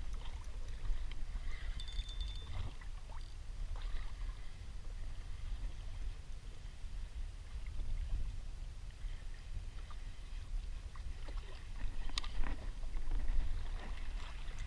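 Wind buffeting the microphone as a steady low rumble, with choppy sea water splashing and slapping around a kayak and a few short knocks, the loudest near the end.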